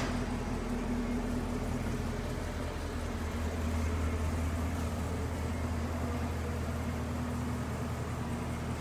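Car engine with long-tube headers and an X-pipe exhaust idling steadily, a low drone whose note shifts slightly about three seconds in. The exhaust leak at the rear pipe joint has just been fixed by pushing the pipe in and clamping it.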